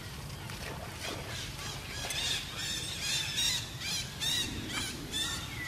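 A rapid series of high, arched squealing animal calls, about three a second, growing louder about two seconds in, over a steady low background hum.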